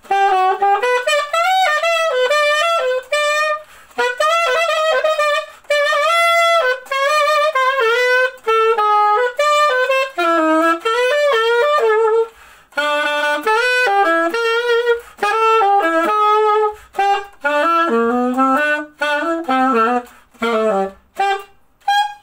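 Cheatau CAS 21L alto saxophone played solo and unaccompanied: a melody in short phrases with brief breath pauses between them, some held notes wavering with vibrato.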